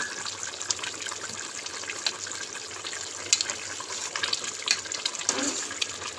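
Potatoes simmering in a spiced broth in a metal pot, the liquid bubbling and popping with many small ticks. A metal spatula stirs through it, now and then clicking against the pot.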